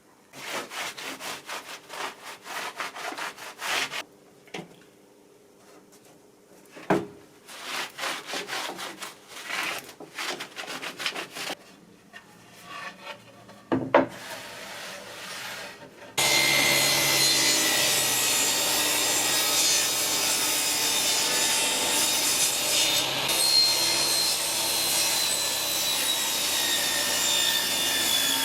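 Quick rubbing strokes against wood come in bursts with short pauses. About sixteen seconds in, a power tool switches on and runs steadily and louder, with a faint whine.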